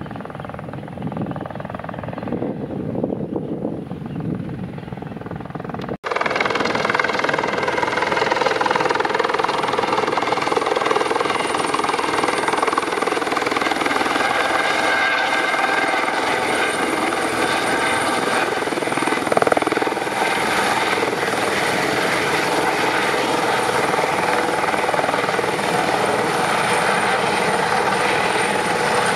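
Airbus H130 helicopter with its single turboshaft engine and Fenestron tail rotor in flight, heard at a distance at first. After a sudden cut about six seconds in it is much louder and close, hovering low: a steady rotor and turbine sound with a high whine.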